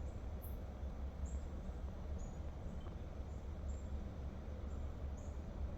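Outdoor ambience: a steady low rumble with short, high chirps repeating a little under a second apart.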